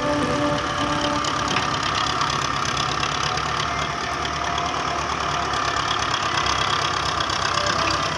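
Diesel engine of heavy machinery running steadily with a rapid knock, and a higher whine that grows louder about a second in.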